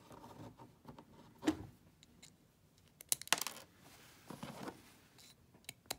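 Small acrylic and plastic case parts being handled on a tabletop: scattered light clicks and taps, with a quick cluster of clicks about halfway through and a couple of sharp clicks near the end.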